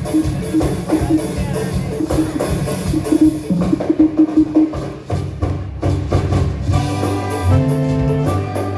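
A Ghanaian Frafra gospel band playing live: drums and percussion with a short repeated riff, then a little past halfway held chords and a moving bass line come in.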